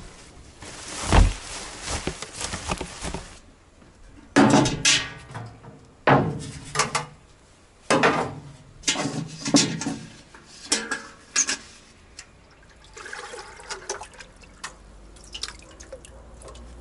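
Water pouring and splashing into a large metal tank from a bucket, in a long first pour and then a run of separate splashes.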